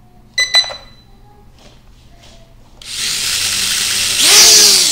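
Two short electronic beeps about half a second in, then about three seconds in the toy drone's small electric motors and propellers start whirring, speeding up and easing back in pitch as the throttle is worked. This is a test spin after replacing the broken rotor rod and gearbox, and the rotor turns.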